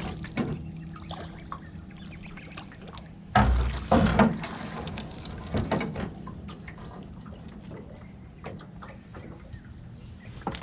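A hooked grunter splashing at the surface as it is scooped into a landing net beside a small aluminium boat. There are heavy splashes and knocks about three and a half to four seconds in and again near six seconds, then smaller knocks and clicks as it is handled.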